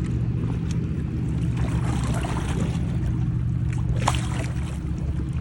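Boat engine running steadily under way, a low even drone, with water noise along the hull and a single sharp click about four seconds in.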